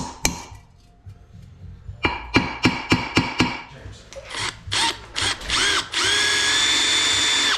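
Ball-pein hammer peening stitching screws in a cast iron cylinder head: two sharp metallic blows, then after a pause a fast run of about eight ringing blows. A cordless drill then starts in short whirring bursts rising in pitch, runs steadily into the cast iron for about a second and a half, and stops.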